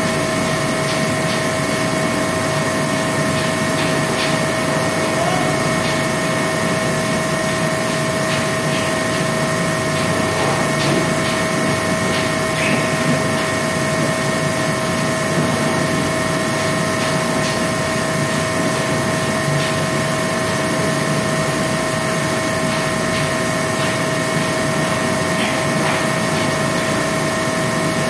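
A machine running steadily, with a constant hum and several fixed whining tones, and a few faint clicks or taps scattered through it.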